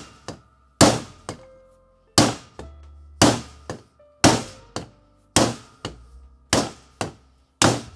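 Hammer blows on a timber dowel driven down the aluminium battery tube of an Apple A1314 wireless keyboard: seven hard knocks about a second apart, each followed by a lighter second knock. They are forcing a stuck, corroded AA battery out of the bottom of the tube.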